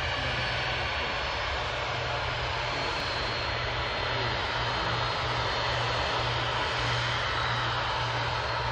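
Boeing 767-300ER's twin jet engines at low taxi power: a steady rushing jet noise with a faint high whine and a low rumble underneath.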